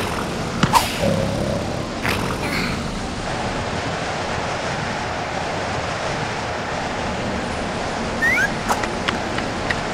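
Cartoon sound effects: two sharp knocks in the first two seconds, then a steady rushing, wind-like ambience. A few short rising squeaks and clicks come near the end.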